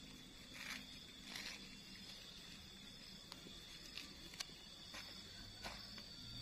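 Faint papery rustles and small crackles, several times, as thin spring roll wrappers are peeled apart by hand. A steady high insect drone carries on behind.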